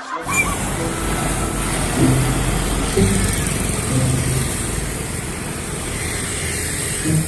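Road traffic: a steady rumble of engines and tyres from vehicles passing on a road.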